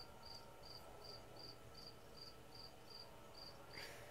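Near silence with a faint, even high chirping, about two and a half chirps a second. One brief soft noise comes near the end.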